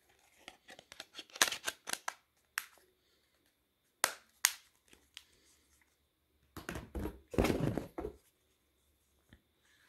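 Sharp plastic clicks and snaps as the battery cover of a ZTE Z222 phone is fitted and pressed shut, then a longer clatter of plastic phones shifting against each other in a cardboard box near the end.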